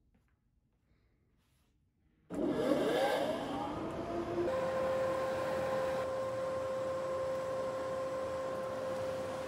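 Workshop dust collector switched on about two seconds in: its motor and fan spin up with a rising whine, then run at a steady pitch over a rush of air.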